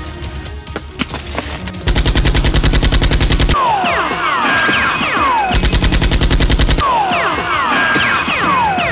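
Machine-gun fire sound effects in two fast, rapid-fire bursts, each followed by several high falling whistles, over background music. The gunfire starts about two seconds in.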